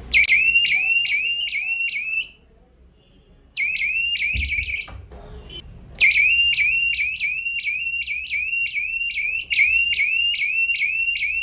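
Homemade door security alarm circuit's buzzer sounding: rapid rising electronic chirps, about three a second. They come in two short bursts that stop and restart, then run on steadily from about six seconds in. A dull knock and a couple of clicks fall in the second gap.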